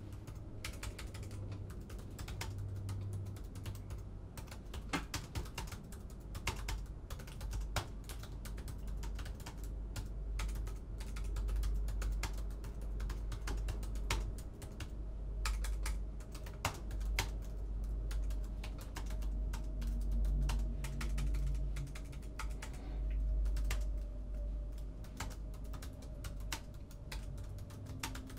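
Typing on a laptop keyboard: a continuous, irregular patter of key clicks over a low, steady hum.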